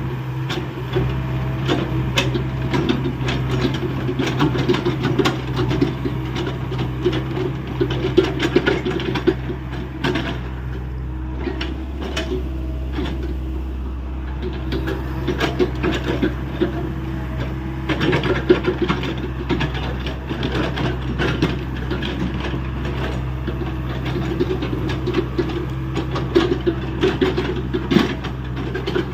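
Hyundai 85A excavator's diesel engine running steadily while the machine digs earth, with frequent short knocks and rattles from the working machine.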